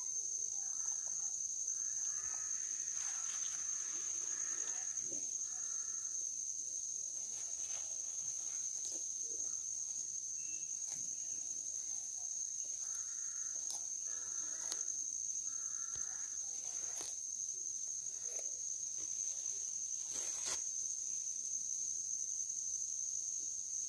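Steady high-pitched drone of insects, with scattered short crunching clicks as a sulcata tortoise bites and tears at grass. Two brief clusters of faint animal calls come in a few seconds in and again about halfway.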